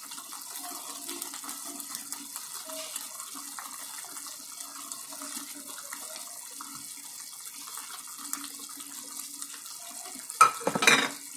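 Thick onion-and-masala gravy simmering in a steel kadai, a steady bubbling hiss. Near the end come a few loud, sharp clinks of a utensil against the pan.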